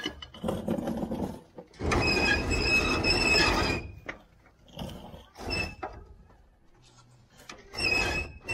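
Manure spreader's steel floor chain scraping and squealing against the metal of the spreader as it is drawn in under the box: one long scrape of nearly two seconds about two seconds in, then shorter squeals around five seconds and near the end.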